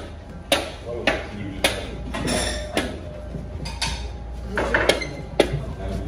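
A wooden pestle pounding mashed chickpeas in a large metal bowl, with sharp knocks of wood against the paste and metal about twice a second at an uneven pace.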